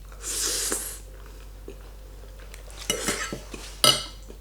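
A fork clinking and scraping against a plate of carbonara pasta, with a few sharp clinks about three and four seconds in. A short rushing noise, about half a second long, comes near the start.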